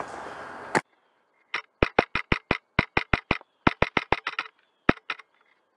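Airsoft gun firing a quick string of sharp shots, about five or six a second, thinning out and weakening near the end. The gun is running out of air, losing power with each shot.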